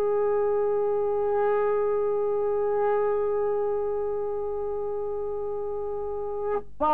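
Conch shell trumpet blown in one long, steady, horn-like note that stops suddenly near the end.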